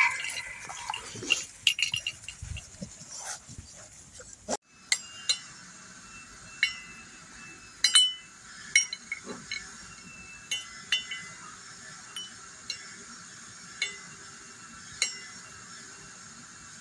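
Metal cups and ladles hanging from a puppy play frame clinking and ringing as puppies knock and tug at them: irregular sharp clinks, a dozen or so, each with a short metallic ring. The first few seconds hold scuffling and bumps instead.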